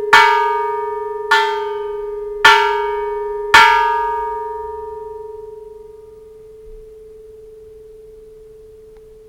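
Japanese bronze Buddhist temple bell struck four times, about a second apart, each strike ringing out over the last. It then hums on alone with a warbling "trill", fading slowly.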